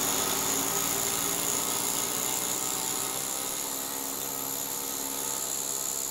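Handheld high-speed rotary grinder running steadily against the surface of a sculpture, a constant high-pitched whine.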